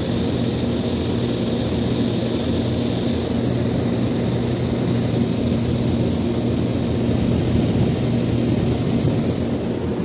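No-frost refrigerator's evaporator fan running behind its frosted guard: a steady whirring hum with a thin high whine over it that stops right at the end.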